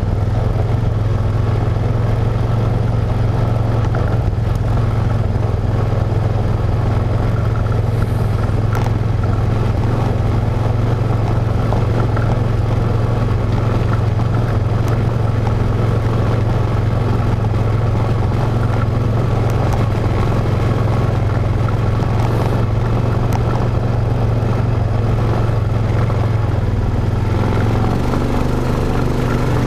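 ATV engine running at a steady trail-riding pace on a dirt track, with a few faint clicks along the way.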